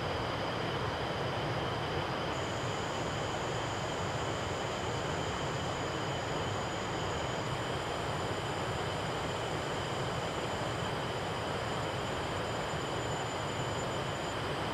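Synthesized jet-engine sound from the ZynAddSubFX SUBsynth: a steady rushing noise with high whistling tones held on top. A higher whistle comes in about two seconds in, shifts and thins later on, and drops out just before the end.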